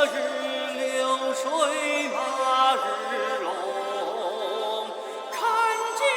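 Music from an organic house mix: a sung, chant-like vocal line with a wavering pitch over sustained backing tones, with no deep bass.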